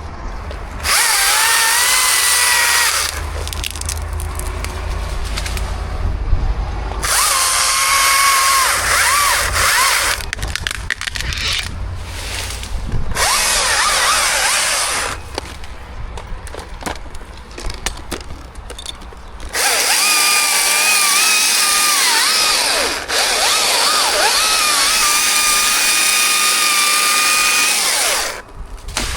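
Chainsaw run in four bursts of full-throttle cutting, the longest near the end, its high whine wavering and dipping as the chain bites into the wood, dropping back between cuts.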